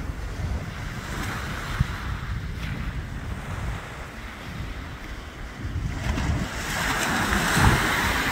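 North Sea waves breaking and washing up a shingle beach, a steady surf hiss that swells louder near the end, with wind buffeting the microphone.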